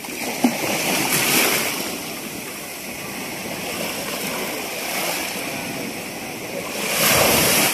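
Sea water sloshing and splashing, with louder surges about a second in and again near the end.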